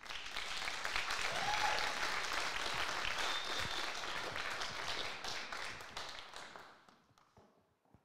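Audience applauding, a dense patter of many hands clapping that dies away about seven seconds in.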